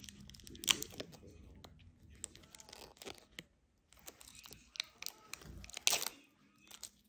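Plastic wrapper of a Gouda cheese bar being crinkled, tugged and torn open by hand, in irregular crackles with a loud one about a second in and another near the end. A strained cry comes near the end as she pulls at it.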